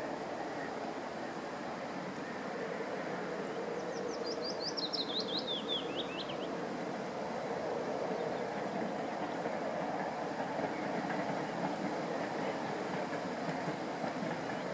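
A songbird sings one descending run of about a dozen quick, clear notes, starting about four seconds in, over a steady rushing background noise.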